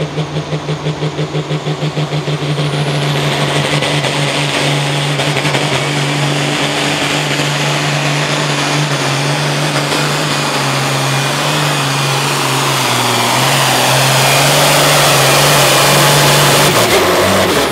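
Hot Farm class pulling tractor's diesel engine at full throttle dragging the sled. It pulses for the first couple of seconds, then runs steadily at high revs, drops in pitch about 13 seconds in as it is pulled down under the sled's load, and cuts off sharply near the end.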